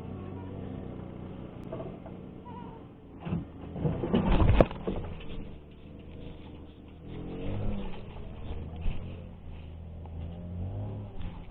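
Cats growling and yowling low and drawn-out at each other in a territorial standoff, the pitch wavering about seven seconds in. About four seconds in there is a short loud rustling burst.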